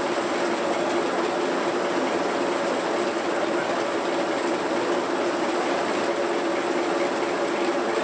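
Antique sawmill's engine power unit running at a steady speed, with a constant hum and no change in load.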